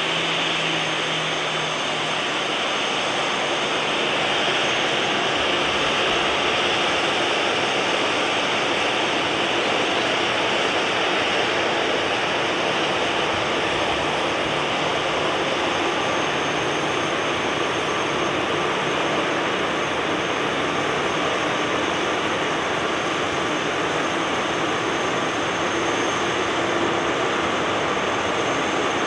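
Boeing 737-800's CFM56 jet engines at taxi thrust: a steady hiss with a faint high whine, holding an even level throughout.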